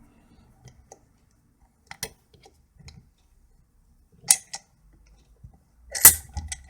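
Handling noise: a few separate sharp clicks and knocks, as of small hard objects being moved and set down, the loudest about four and six seconds in.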